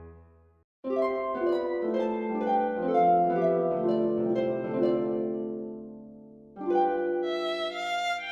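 Background music: a gentle melody of plucked string notes that begins after a brief silence about a second in, fades, and starts a new phrase near the end.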